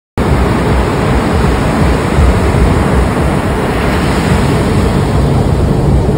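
Ocean surf washing up over a wet sand beach, a steady loud rush that starts abruptly just after the beginning, with wind rumbling on the phone's microphone.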